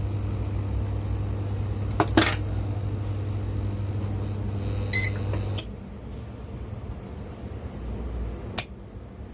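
Air-conditioner control board test setup running with a steady mains hum. Two clicks come about two seconds in and a short beep about five seconds in, then a click as the hum cuts off, the unit switched off. A faint click follows near the end.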